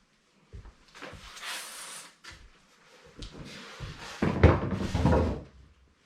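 Styrofoam packing being pulled away from a large boxed TV: rubbing, scraping and soft knocks, with the loudest scrape about four to five seconds in.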